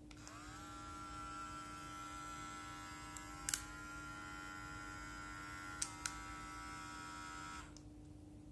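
Cordless electric hair clipper switched on, its motor and blade humming up to speed with a rising pitch, then running steadily. Button clicks come about three and a half seconds in and twice around six seconds in, the motor's pitch shifting slightly at each. The clipper then switches off near the end.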